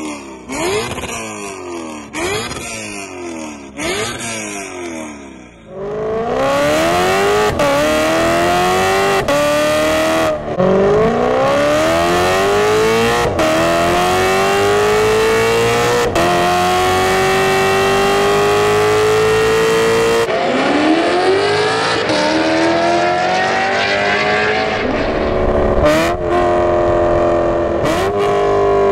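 Lexus GS F's 5.0-litre V8, breathing through Novel headers and exhaust, first blipped several times while standing, each rev rising and falling quickly. From about six seconds in it is under hard acceleration, pitch climbing steadily and dropping back at each upshift. A second full-throttle pull starts about twenty seconds in.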